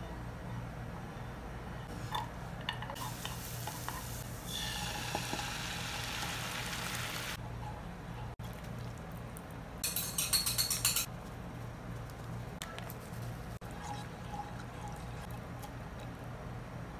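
Cooking sounds in a non-stick frying pan: a wooden spoon stirring, with a few seconds of steady hiss from liquid in the pan about three seconds in, and a quick run of clinks and scrapes of the spoon against the pan around ten seconds in, over a steady low hum.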